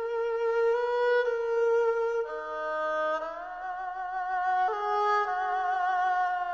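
Background music: a slow melody of held notes on a bowed string instrument like a violin, some with vibrato.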